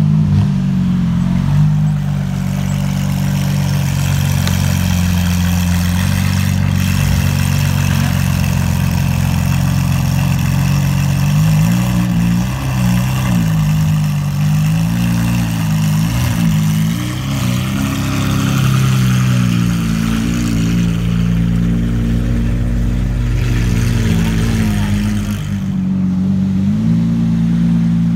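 Lamborghini Aventador SVJ's naturally aspirated V12 running at low revs as the car creeps along, with the engine note rising and falling a little under light throttle partway through.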